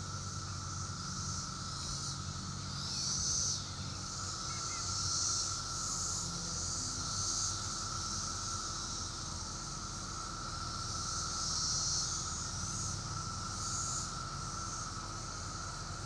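Chorus of 17-year periodical cicadas: a steady high drone with higher buzzing that swells and fades every second or two.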